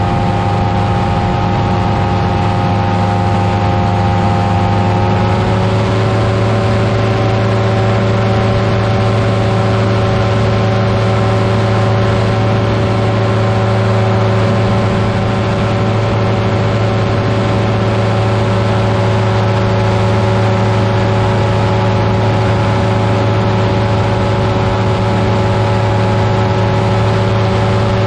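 Buckeye Dream Machine powered parachute's engine and propeller running steadily in flight. The drone rises a little in pitch about five seconds in, then holds steady.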